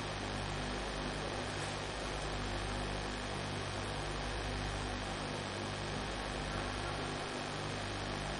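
Steady electrical mains hum with a faint hiss: background noise on the lecture recording.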